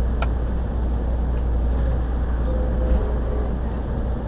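Steady low rumble of an Amtrak passenger train rolling slowly, heard from inside the passenger car, with one sharp click about a quarter of a second in.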